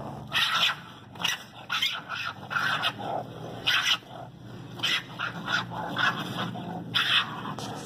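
Raccoons fighting: about nine short, harsh, noisy cries and snarls, unevenly spaced, in what is only a mild fight.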